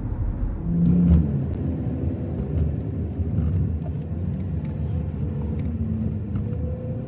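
A vehicle driving on a road with a steady low engine rumble, swelling louder about a second in.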